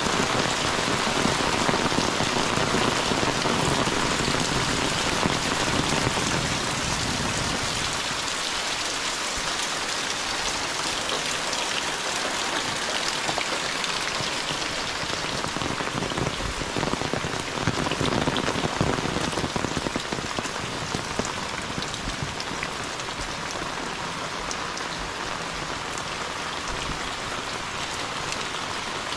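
Heavy rain falling steadily on tile and tin roofs, foliage and a muddy path, with many close drops ticking through it; the low part of the sound thins out about eight seconds in.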